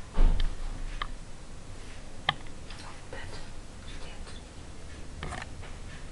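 Hands working cotton threads on a pinned macramé pillow: a low bump just after the start, then a few scattered, irregular soft clicks and rustles as the threads are knotted.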